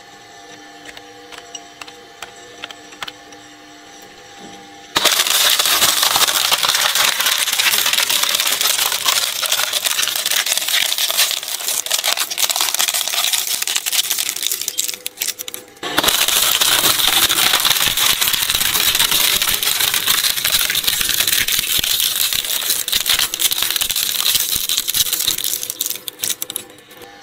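Twin-shaft shredder running with a steady hum, then, about five seconds in, loud dense crackling and crunching as a plastic computer keyboard is torn apart between its cutter discs. The crunching breaks off for a moment near the middle, starts again, and stops shortly before the end, leaving the motor hum.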